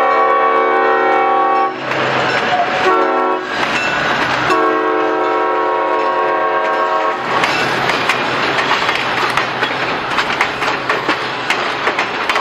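EMD SW1200 switcher's chime horn sounding in blasts as the train passes: a long blast ending about 2 s in, a short one about a second later, and another long one from about 4.5 to 7 s. Between the blasts and after them, the passenger cars roll by with steady wheel clickety-clack over the rail joints.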